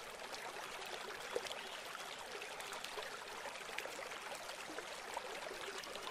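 Mountain stream rushing over rocks, a steady, fairly faint water noise that fades in at the very start.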